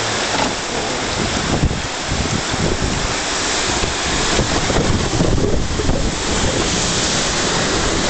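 Rushing whitewater of a river rapids ride heard from aboard a round raft. The water churns and splashes around the boat as a loud, steady rush that grows louder about halfway through, with spray splashing over the raft near the end.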